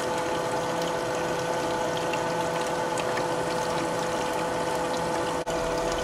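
Water running steadily through a GOLDROP gold separator's funnel and feed tube, with the spin water set so that the pay dirt moves down toward the elutriation point, over a steady hum. The sound breaks off for an instant near the end.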